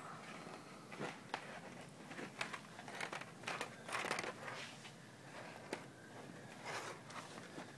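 Small dog in a plastic cone collar working at a chew stick on a blanket: irregular rustling, crinkling and sharp clicks from the cone, the bedding and its chewing, busiest about four seconds in.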